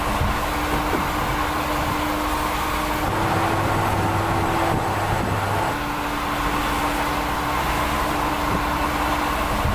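Mercedes-Benz GenH2 fuel-cell electric truck driving at speed on a motorway: steady rolling and drive noise with a steady hum, shifting slightly about three seconds in and again just before six seconds in.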